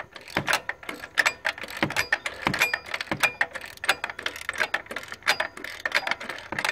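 Socket ratchet clicking in quick, uneven strokes as it backs out the bolt of the serpentine belt's idler tensioner pulley.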